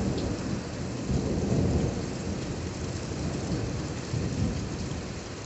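Rolling thunder over steady rain, the rumble loudest about a second and a half in and swelling again about four seconds in.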